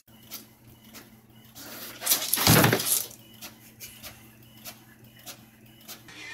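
Desktop printer printing a page: a loud whirring paper-feed pass about two seconds in, then a run of quick mechanical clicks about three a second over a steady low hum.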